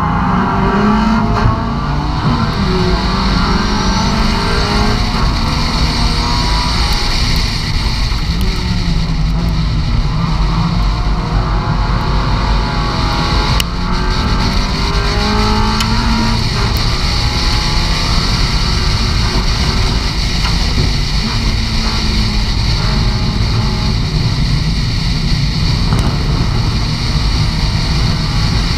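S1600 rallycross car's 1.6-litre engine racing flat out, heard onboard. The engine pitch climbs and drops again and again through gear changes and corners, over steady tyre and wind noise.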